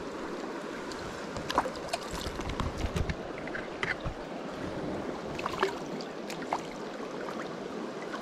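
Swift river current rushing steadily, with small, sharp splashes as a hooked rainbow trout flaps at the water's surface.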